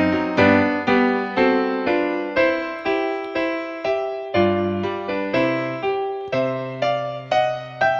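Background music: a gentle electric piano melody, notes struck about twice a second over bass notes.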